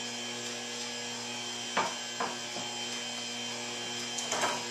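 Electric stand mixer running steadily, its motor humming as it beats butter, sugar and eggs together, with a few light knocks about two seconds in and again near the end.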